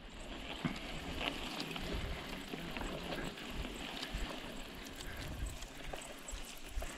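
Mountain bike ride noise on an action-camera microphone: wind rumbling on the mic, with tyres on the trail and small rattles and clicks throughout.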